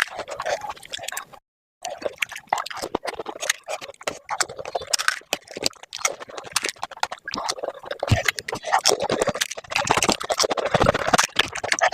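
Sped-up eating of panipuri: rapid crisp puri shells cracking and crunching, with wet slurping of the spiced water. A brief dropout to silence comes about a second and a half in.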